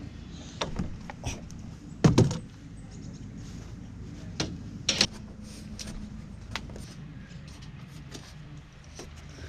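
Short knocks and clatter of tools and metal fittings while a roof-mounted solar panel's bracket is undone with a cordless driver, the loudest a sharp double knock about two seconds in, over a steady low hum.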